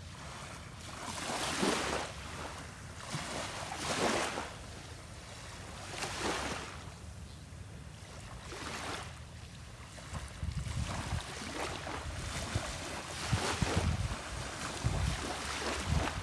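Small waves lapping onto a shelly shoreline, a swelling wash of water every two to two and a half seconds. From about halfway through, wind buffets the microphone with low rumbling gusts.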